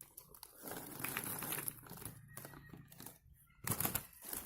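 Plastic snack wrappers and a toy card being handled: crinkling and rustling with small clicks and taps, and a louder burst of crinkling near the end.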